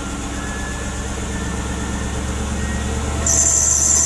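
Mercedes AMG 55 V8 engine running in drive under load, its hum growing slowly louder; the engine is one the mechanic finds to be seriously over-fueling. About three seconds in, a loud high-pitched hiss starts and holds.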